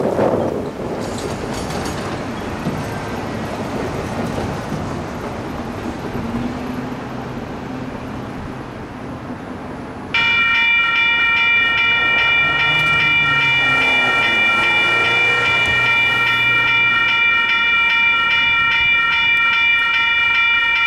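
Wind buffeting the microphone, fading down, then about halfway in a railroad grade-crossing warning bell begins ringing, striking steadily and evenly as the crossing signals flash and the gates lower.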